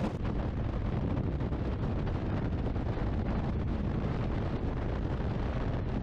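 Loud, steady wind roaring and buffeting the microphone during a parachute jump.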